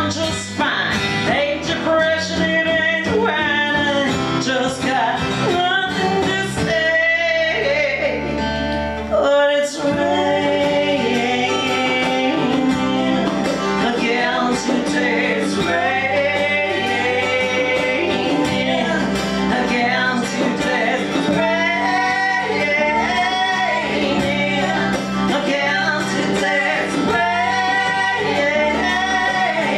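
Live acoustic band: women singing, with a second voice joining in harmony, over strummed acoustic guitars.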